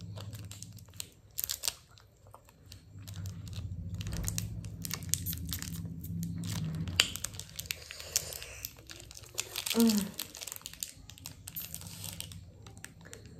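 Plastic ice cream bar wrapper crinkling and tearing as it is pulled open by hand, in irregular crackles.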